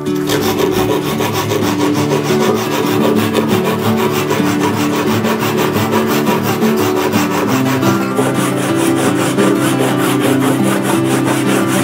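Japanese ryoba pull saw cutting across an oak beam in quick, regular strokes, sawing down the walls of a housing dado.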